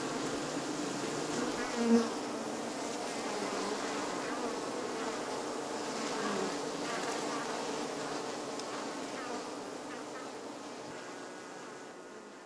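Honeybees buzzing in a steady, many-toned hum, with a brief louder buzz about two seconds in; the sound slowly fades out near the end.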